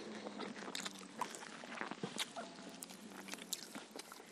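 Close-miked eating sounds: fried chicken lollipops being bitten and chewed, with irregular small crunches and wet mouth clicks.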